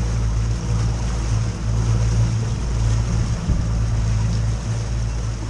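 Small fishing boat under way on open water: a steady low motor drone with wind and water rushing past.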